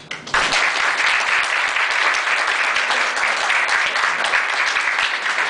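A small roomful of people applauding: the clapping starts suddenly just after the start and keeps up steadily.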